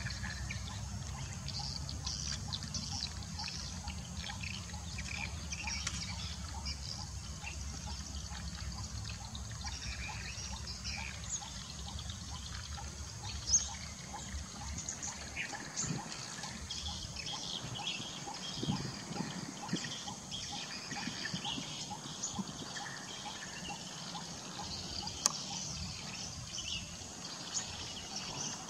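Asian elephants feeding in grass and brush: steady rustling and crackling of vegetation, with two sharp cracks, one about halfway through and one near the end. Birds chirp in the background.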